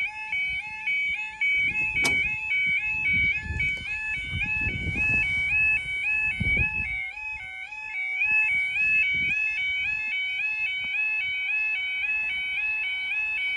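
Level crossing yodel alarm: a continuous two-tone warble stepping rapidly between two high pitches, sounding as the barriers come down ahead of a train. A sharp click about two seconds in, and low rumbling for a few seconds after it.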